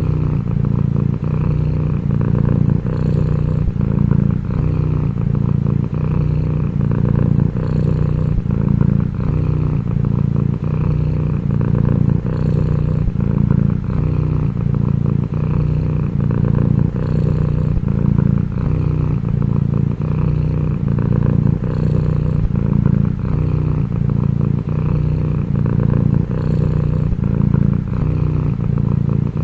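Domestic cat purring loudly and steadily, close up, the purr swelling and dipping about once a second.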